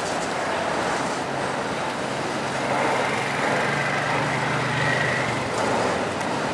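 Freight train of autorack cars rolling past, a steady rumble and hiss of steel wheels on rail. A low hum joins for a few seconds in the middle, along with a faint high wheel squeal.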